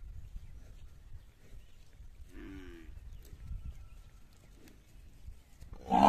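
A farm animal calling twice: a short, fainter call a little over two seconds in and a louder one near the end, over a steady low rumble.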